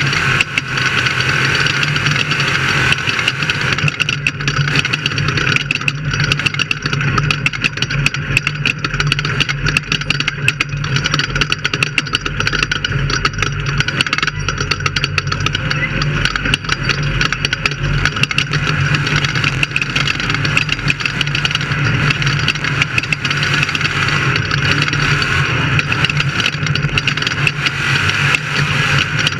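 Off-road race vehicle's engine running steadily and hard, with frequent sharp clicks and knocks over the top of it.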